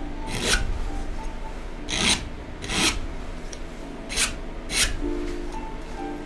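Edge of a steel palette knife scratching lines into paint on a canvas: about five short scraping strokes at uneven intervals. Faint background music comes in near the end.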